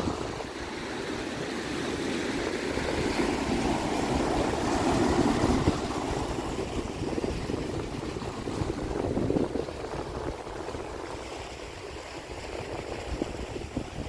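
Ocean surf surging in and washing through channels between low rocky ledges, a continuous rush of foaming water that swells to its loudest about five seconds in and again just before ten seconds.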